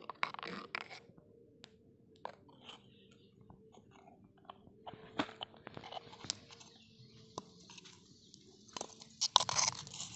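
Small clicks, taps and crunchy scraping from a thin steel spoon working in a miniature clay pot while dry vermicelli is handled. There is a louder crunchy burst near the end.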